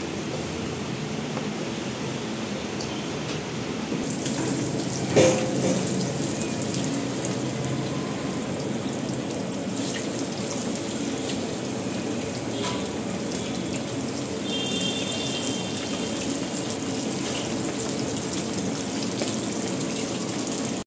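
Marinated chicken tikka pieces deep-frying in hot oil in an iron kadhai: a steady sizzle, with one sharp knock about five seconds in.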